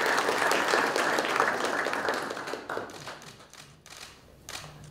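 Applause from a roomful of people: steady clapping that dies away a little past halfway, with a few last scattered claps near the end.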